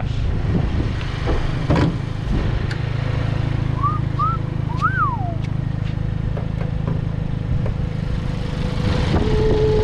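Hyundai i30N's turbocharged four-cylinder engine running with a steady low rumble. A few short chirping whistles come about four to five seconds in.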